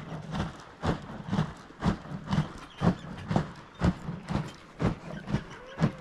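Animal-skin churn swung back and forth on a wooden tripod, the dairy inside sloshing and thudding with each swing in an even rhythm of about two strokes a second. This is hand-churning buttermilk to separate out the butter.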